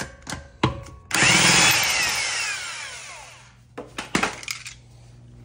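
Cordless DeWalt impact wrench spinning an already-loosened lug nut off a car wheel, its motor running hard for about a second and then winding down with a falling whine as the trigger is released. A couple of sharp metallic clicks follow near the end.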